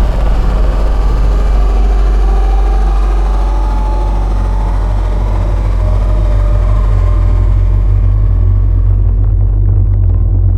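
Dark ambient cinematic drone sample: a loud, steady, deep low rumble under a hazy, slowly shifting middle layer. The upper layer thins and darkens over the last few seconds.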